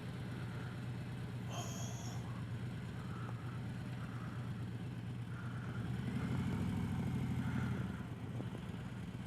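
Harley-Davidson Road Glide's V-twin engine running steadily. It swells louder about six seconds in and settles back about two seconds later.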